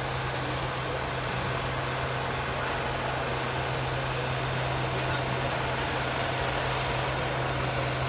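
Farm tractor engine running steadily under load while pulling a weight-transfer sled, its note holding one unchanging pitch.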